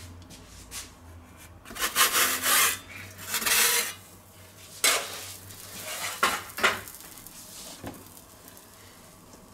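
Pizza peels scraping and sliding across a pizza stone as a raw pizza is pushed off onto it: two rasping scrapes in the first four seconds, then a few sharp knocks and taps.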